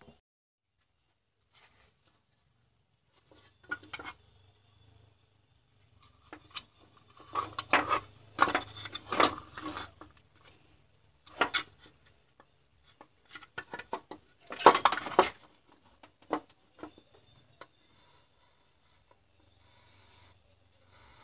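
Hard plastic clicks, knocks and rattles as a cordless-drill battery pack's plastic housing and cover are handled and fitted together on a workbench. The sounds come irregularly, with two spells of denser rattling, the louder about two thirds of the way through.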